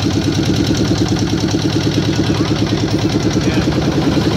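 A motor engine running steadily with an even, rapid pulsing.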